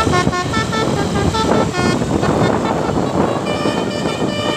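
Basuri telolet bus horn, a multi-tone air horn, playing a quick tune of short stepped notes, then holding a chord of several tones near the end. Rushing traffic noise runs underneath, and comes through plainly in the middle between the notes.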